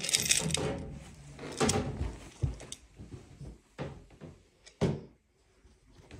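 Footsteps and handling knocks on a carpeted staircase: a loud rustling knock at the start, then several dull thumps roughly a second apart.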